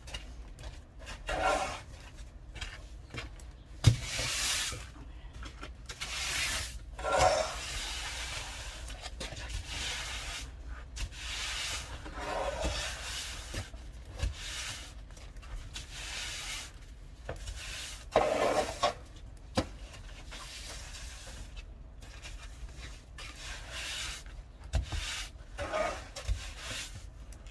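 Snow being cleared with a shovel: separate rasping scrapes every few seconds, with one sharp knock early on.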